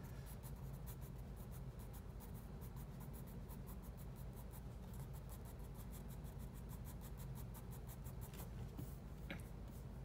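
Sharpened H graphite pencil scratching on drawing paper in rapid short feathering strokes, several a second, stopping about eight and a half seconds in.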